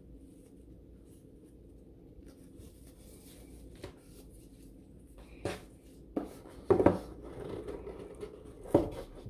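A satin ribbon is pulled off a rigid cardboard gift box with faint rustling. Then the box is handled and its lid worked loose: several sharp cardboard knocks and scrapes, the loudest about seven and nine seconds in.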